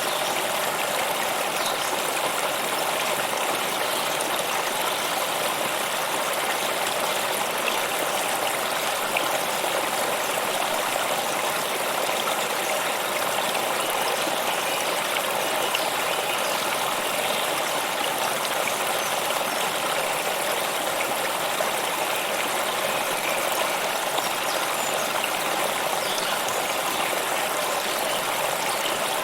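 Stream water flowing steadily over stones, an even rushing and trickling that does not change.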